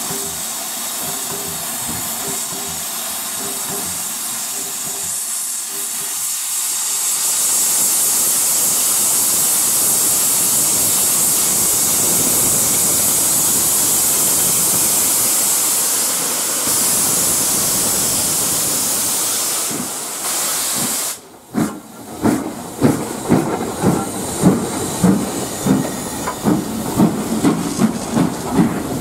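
Steam locomotive 6201 Princess Elizabeth, an LMS Princess Royal class Pacific, letting off steam with a steady hiss that grows louder about a quarter of the way in. After a break about three quarters through, the locomotive moves past with regular beats about twice a second.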